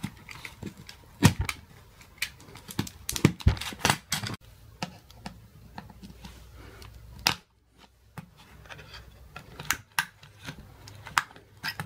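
Small flat-blade screwdriver prying at the seam of a plastic USB charger case: irregular scrapes and sharp clicks as the blade works into the joint, which is hard to open.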